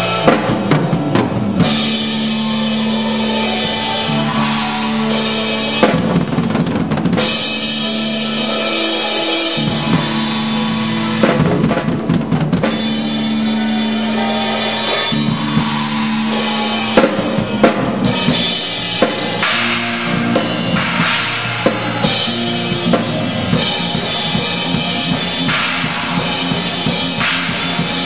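Drum kit played close up in a rehearsing pit orchestra: rapid drum and cymbal strokes over the band's held pitched notes, which shift every few seconds.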